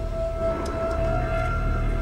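Eerie background music: a held, moaning tone over a low rumbling drone.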